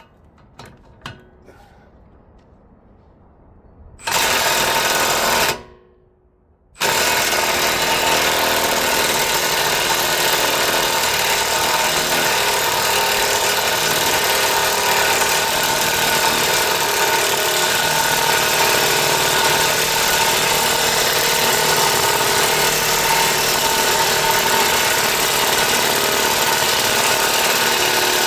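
Cordless impact wrench hammering without a break on a puller bolt, trying to force out a seized front hub and wheel bearing that will not budge. After a few light clicks it starts about four seconds in, stops for about a second, then runs on steadily.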